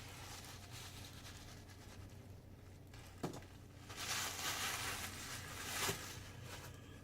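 Rustling of a synthetic wig and its mesh netting being handled and pulled apart, with one sharp click about three seconds in and a longer rustle from about four to six seconds in.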